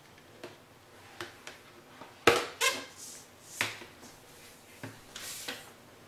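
A few sharp clicks and knocks of hands handling the setup, the loudest a little over two seconds in, with a short hiss about five seconds in.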